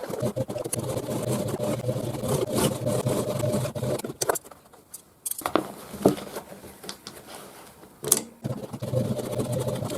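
Sewing machine running steadily, stopping about four seconds in; a few sharp clicks follow, the loudest about six seconds in and another just after eight, and the machine starts running again near the end.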